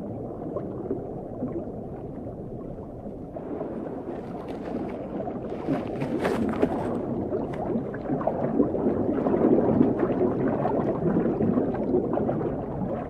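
Sea water sloshing and gurgling in a low, rumbling wash, swelling louder toward the middle, with a few sharp crackles about six seconds in.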